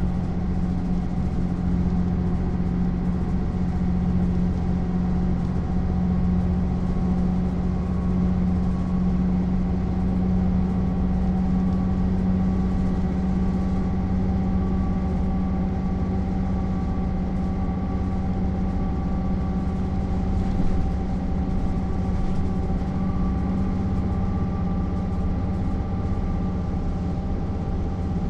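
MAN SL 200 city bus's six-cylinder diesel engine running steadily at constant engine speed, a deep even drone heard from inside the passenger saloon. A brief knock about two-thirds of the way through.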